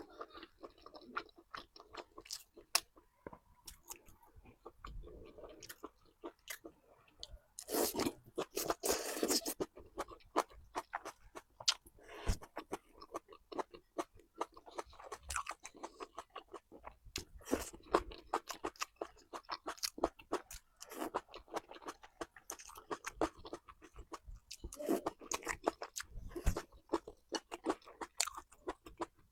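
Close-miked eating: a person chewing and biting food, with many small wet clicks and crunches. A louder, noisier crunching stretch comes about eight seconds in and lasts a second or two.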